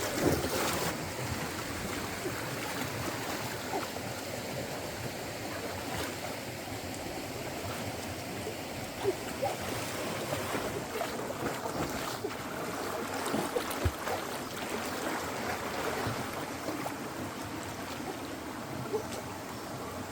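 Steady rush of a flowing stream, with a few short sharp knocks or splashes now and then.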